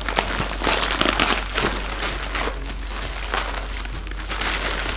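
Plastic courier bag crinkling and rustling as a parcel is handled and opened, a continuous run of small crackles.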